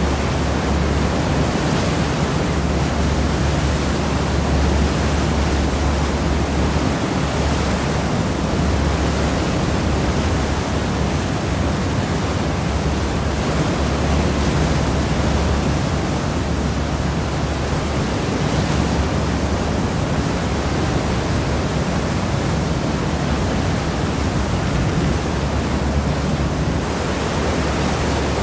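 Seawash from the stern of a cross-channel ferry: a steady, loud rush of churned water in the ship's wake, swelling gently now and then, over a low steady rumble.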